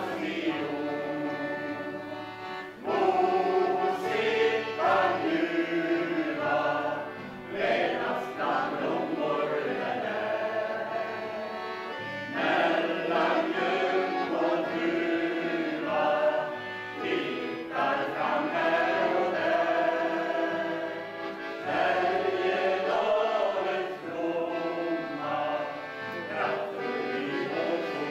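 Mixed choir of men's and women's voices singing a song with accordion accompaniment, in phrases of a few seconds each.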